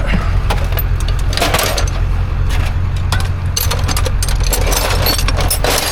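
Metal tools clinking and clattering in quick irregular bursts as a toolbox is rummaged through for an impact drill, over the steady low hum of an idling vehicle engine.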